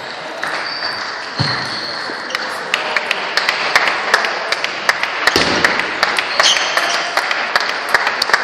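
Table tennis balls clicking off bats and tables, irregular quick taps from several rallies at once, over a murmur of voices in a large hall. Two heavier thuds stand out, one near the start and one about halfway through.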